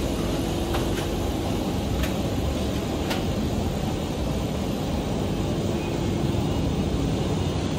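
Steady low rumble of background noise in a large factory hall, with a few faint clicks in the first three seconds.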